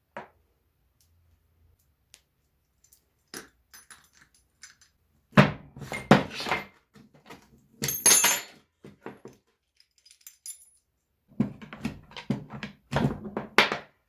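Loose steel parts of a disassembled farm-sprayer gearbox, such as gears and shafts, being handled and set down. They knock and clink together in three clusters of clanks, and one brief metallic ring comes about eight seconds in.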